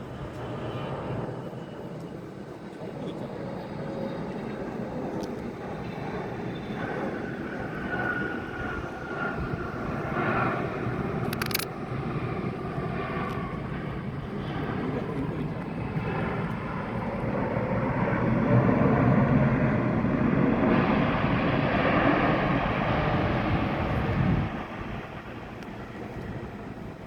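Jet airliner engines rumbling, growing steadily louder to a peak about two-thirds of the way through, then dropping off abruptly near the end. A single sharp click about eleven seconds in.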